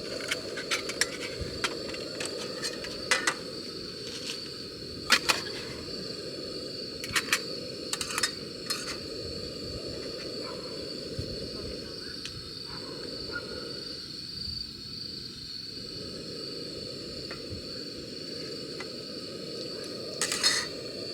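Camp cooking sounds: a steady low rushing noise with a thin, steady high whine, broken by scattered sharp clicks and clinks of utensils on a pot, a few of them louder, around three, five, seven and eight seconds in.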